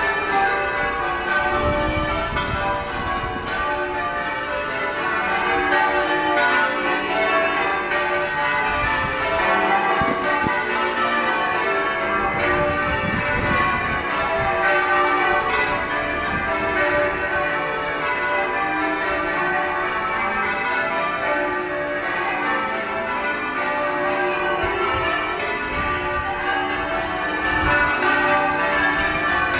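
Durham Cathedral's ring of church bells being rung in changes: a continuous, steady stream of overlapping bell strikes.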